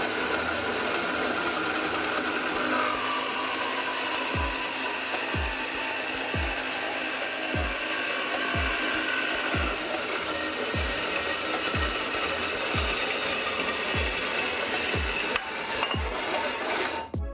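Homemade electric metal-cutting band saw running dry, its blade sawing through a square steel tube with a steady rasping noise that stops abruptly near the end as the cut finishes. A low, falling thump beats about once a second from a few seconds in, from background music.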